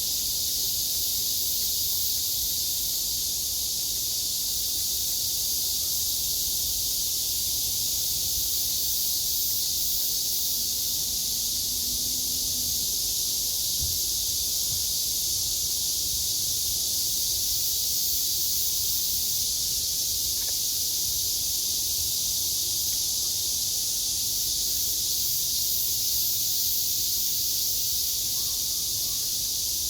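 Steady, unbroken chorus of cicadas: a continuous high-pitched hiss with no pauses.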